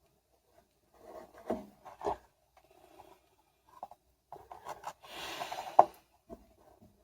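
Hand-work on a washing-machine shock-absorber damper: rubbing and scraping of its parts, with a few sharp knocks. The loudest knock comes just after a second-long scrape near the end.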